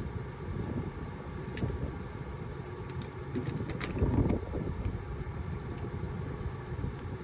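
Tractor diesel engine idling as a low steady rumble, with a few light clicks and a louder knock about four seconds in as the fertilizer hose is handled and hooked up to the planter.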